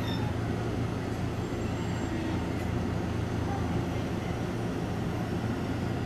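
E257-500 series electric train standing at the platform, just stopped, its running equipment giving a steady low hum.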